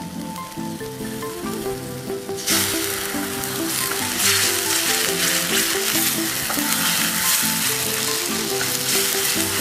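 Blended chilli, shallot and shrimp-paste spice paste sizzling in hot oil in a pan, getting louder about two and a half seconds in. The oil has split from the paste, the sign that it is cooked through.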